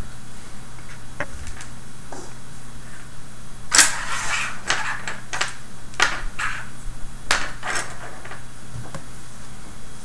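Small plastic robot-kit parts being handled and shifted about on a tabletop: a scatter of light clicks and short scrapes, busiest from about four to eight seconds in, over a steady low hum.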